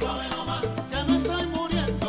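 Salsa music playing, with a repeating bass line under melodic lines and percussion.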